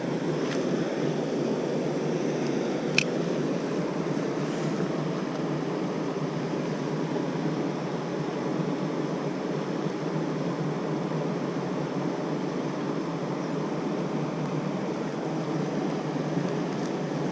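Mountain stream rushing steadily over rocks, with a single sharp click about three seconds in.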